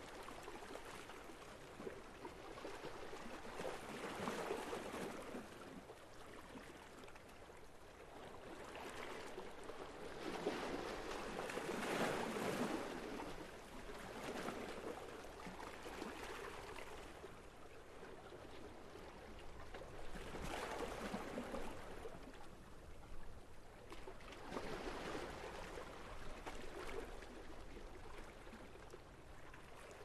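Sea water lapping and washing at the waterfront, rising and falling in swells about every four seconds.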